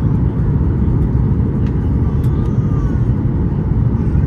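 Steady low rumble of a Boeing 737 MAX 8's CFM LEAP-1B engines and rushing air, heard from inside the passenger cabin.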